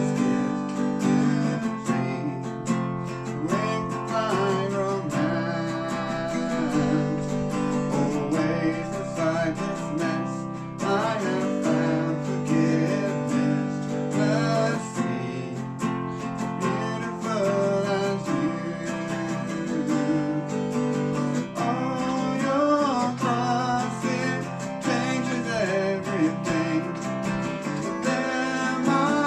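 Worship song played on a strummed acoustic guitar, with a voice singing the melody.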